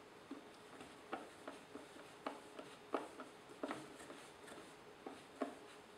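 Faint, unevenly spaced clicks, about eight in all, from a screwdriver turning the front-to-back adjustment screw of a Blum clip-on cabinet hinge.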